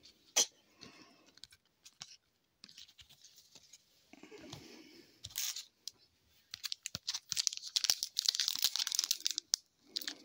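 Cards rustling in the hands after a sharp snap about half a second in, then, from about six seconds in, a hockey card pack's wrapper crackling loudly as it is torn open by hand.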